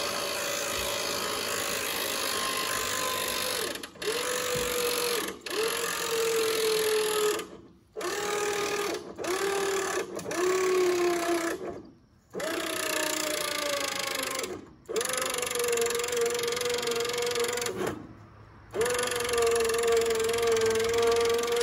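Badland 2000 lb electric winch motor whining as it pulls the cable tight against a heavy load, run in about nine bursts by remote, the pitch sagging in several runs as it strains. The winch is being pushed to its maximum pull.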